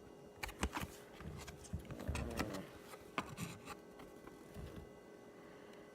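Baseball trading cards being handled: light clicks, taps and rubbing of card stock as cards are shuffled and flipped. The handling is busiest in the first four seconds, then dies down to faint rustles.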